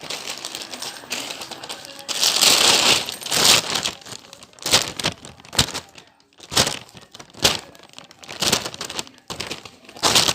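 Plastic crinkling and rustling as squishy toys are handled and packed in, loudest a couple of seconds in, followed by a string of short, irregular crinkles and knocks.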